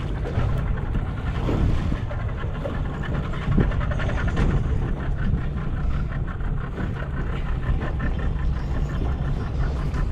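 Yamaha two-stroke outboard motor running steadily on a small fishing boat.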